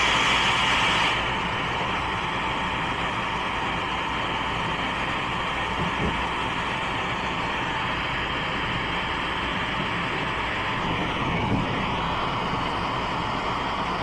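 Turbo brazing torch burning with a steady roaring hiss, a little louder for its first second after lighting, then holding even.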